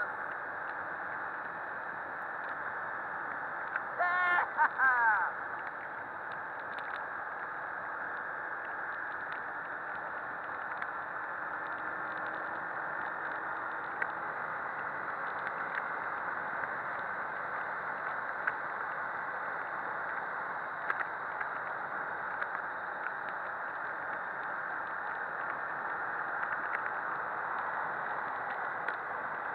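Steady wind rush over the microphone of a Honda CBF250 motorcycle riding at speed, the engine lost beneath it.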